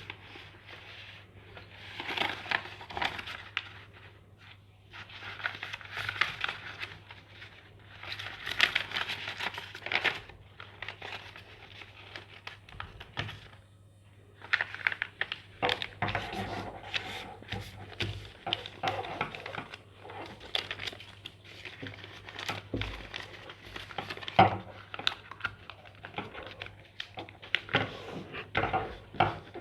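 Sheet of craft paper being folded and creased by hand, rustling and crinkling in irregular stretches of a few seconds with short pauses between folds.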